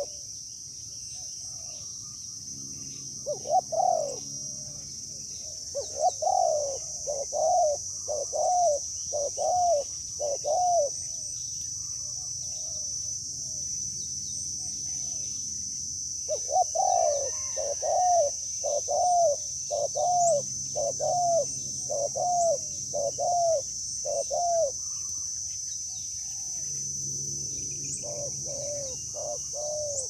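Spotted doves cooing in runs of short rising-and-falling coo notes, about two a second, in several bouts. A steady high insect buzz runs underneath.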